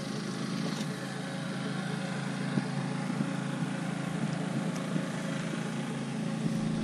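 A motor running steadily at idle, a continuous low hum, with a few light knocks over it.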